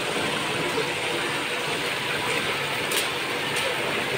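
Small rock waterfall splashing steadily into a koi pond, with two brief clicks about three seconds in.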